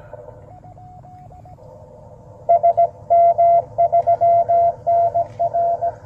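Morse code (CW) from a ham radio transceiver on the 10-metre band: a steady-pitched tone keyed on and off in dots and dashes over a narrow band of receiver hiss. The tone is faint about half a second in, then much louder and busier from about two and a half seconds in.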